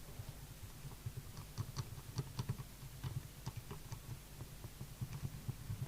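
Irregular small clicks and scratchy ticks of hand tools working on a circuit board during desoldering and cleaning of a dry joint, becoming busier about a second in, over a steady low hum.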